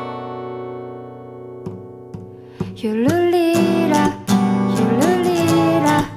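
Background music: a guitar-backed pop song. A held chord fades out, then a voice sings the melody from about three seconds in.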